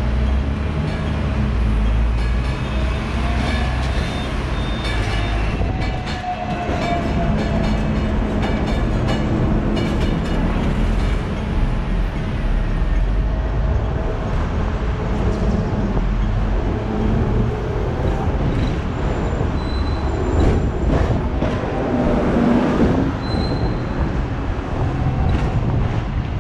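Hong Kong double-decker tram running on its street track, heard from the upper deck: a steady motor hum with a whine that rises about three seconds in, and sharp clacks as the wheels cross rail joints and junction points, clustered around ten and twenty seconds in.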